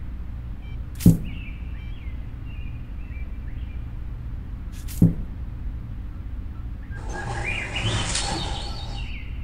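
Two sharp taps as miniature brick walls are set down, about a second in and again about five seconds in, over faint bird chirping. From about seven seconds, a rustling scrape of about two seconds as a corrugated cardboard roof is laid onto the walls.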